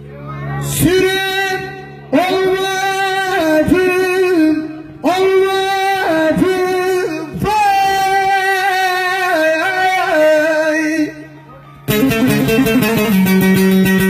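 A man singing a bozlak, a Turkish folk lament, in long ornamented phrases with held and sliding notes over the drone of a bağlama. Near the end the singing stops and the bağlama takes over with fast, dense strumming.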